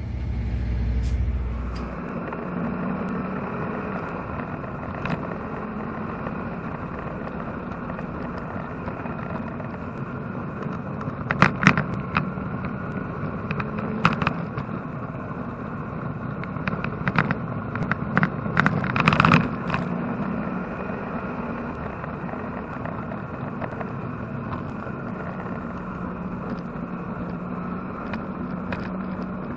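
Chevrolet-engined Porsche 944 race car under way on track, its engine running steadily. A cluster of loud sharp knocks and rattles comes in about the middle.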